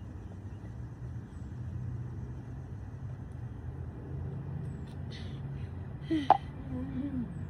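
A steady low hum, and about six seconds in a short sharp vocal squeak that rises steeply in pitch, followed by a brief lower vocal sound.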